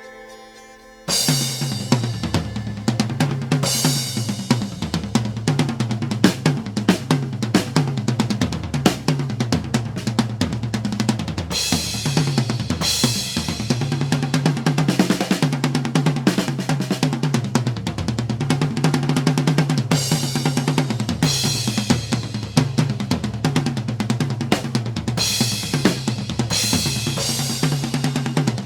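Music with a full drum kit, bass drum, snare and cymbal crashes, keeping a steady beat; it starts abruptly about a second in after a soft, quieter passage.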